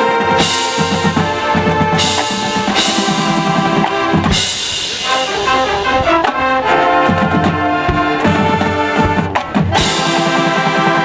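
Marching band playing: brass holding loud chords over drums, with several cymbal crashes.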